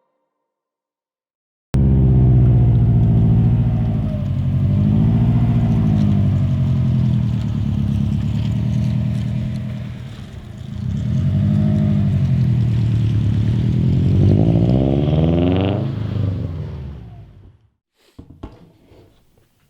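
2008 Subaru STI's turbocharged flat-four running through an Invida N1 Race cat-back exhaust, revving up and back down twice and climbing again near the end. It cuts in suddenly about two seconds in and dies away a couple of seconds before the end.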